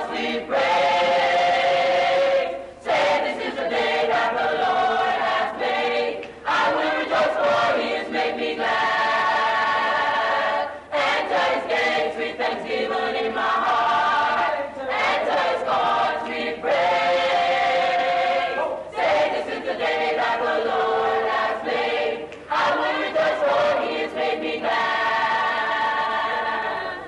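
A Christian choir singing a song in phrases, with short breaths between them; the singing stops at the very end.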